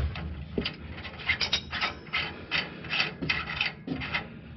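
Metal exhaust flange hardware being worked by hand and with pliers under the car: a knock at the start, then short scrapes and rubs, two to three a second.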